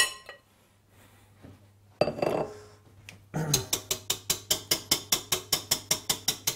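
Wire whisk beating in a stainless steel saucepan, its wires clattering against the pan in a fast, even rhythm of about four strokes a second that starts about three seconds in. Before that, a glass bowl clinks with a short ring at the start and is knocked down again about two seconds in.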